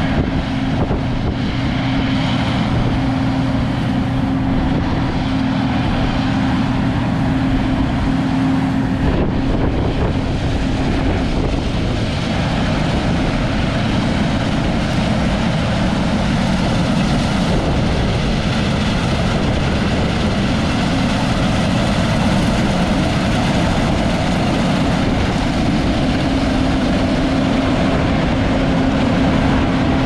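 A vehicle engine running steadily with a constant hum, its tone shifting about nine seconds in.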